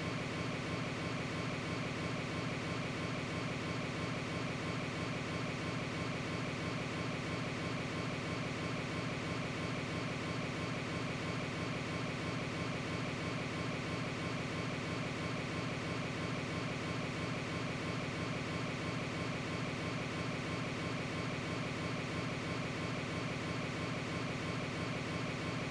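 A steady, unchanging machine-like hum with a low drone.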